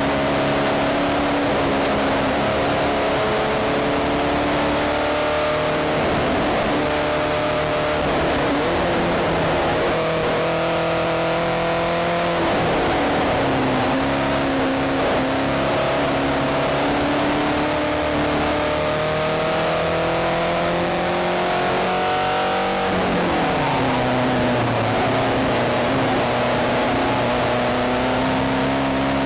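Spec Racer Ford's 1.9 L Ford four-cylinder engine at race pace, heard from the cockpit: the engine note climbs in each gear and drops at each upshift. About 23 seconds in it falls steeply under braking and downshifts for a corner, then climbs again.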